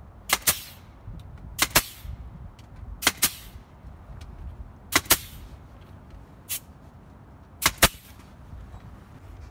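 Pneumatic nail gun fed by an air hose, firing nails into door-surround trim: six sharp shots, most of them in quick pairs, roughly every one and a half seconds.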